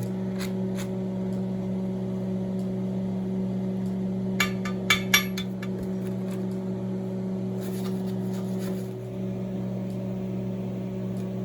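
Steady electrical machine hum in a metal shop, with three or four sharp metallic clinks about four to five seconds in.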